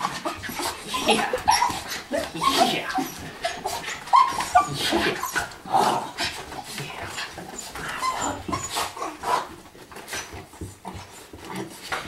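Miniature schnauzers whimpering and panting in excitement at greeting their owner, with short high cries coming in quick, irregular runs.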